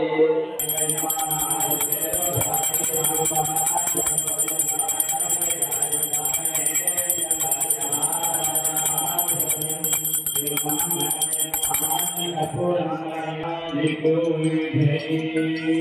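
Brass hand bell (ghanta) rung rapidly and continuously during a lamp aarti, over steady mantra chanting; the bell stops about twelve seconds in while the chanting goes on.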